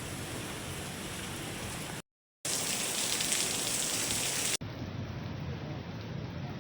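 Steady rain falling, an even hiss of rain on surfaces. It drops out briefly about two seconds in, returns louder and brighter, and changes abruptly to a duller hiss about two seconds later.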